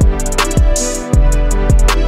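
Trap instrumental beat: deep 808 bass kicks that slide down in pitch, fast hi-hats and claps, with the beat dropping out for a moment about a second in.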